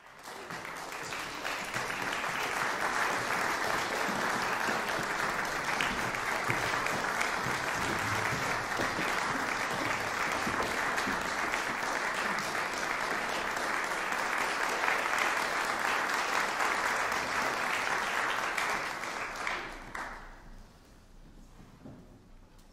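Concert audience applauding. The clapping builds over the first two seconds, holds steady, and dies away about twenty seconds in.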